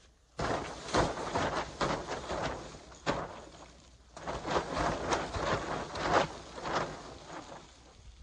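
Snow being pushed off the fabric roof of a canopy tent with a long-handled snow brush: a string of irregular scraping, sliding rushes as the brush strikes the fabric and the snow slides off, starting about half a second in.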